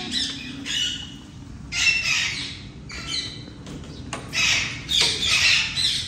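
Parakeets squawking: harsh, repeated screeches in three bursts, about a second in, around two seconds, and a longer run from about four to six seconds.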